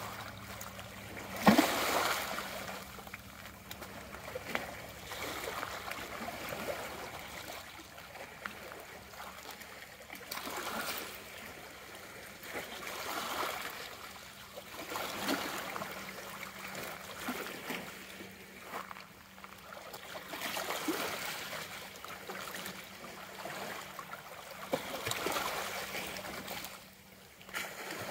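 Small waves of a calm bay lapping and splashing against rocks and gravel at the water's edge, swelling and easing every few seconds, with one sharper splash about a second and a half in.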